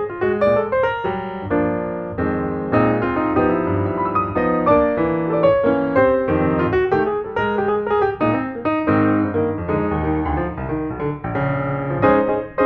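Background piano music, a run of notes played at a steady pace.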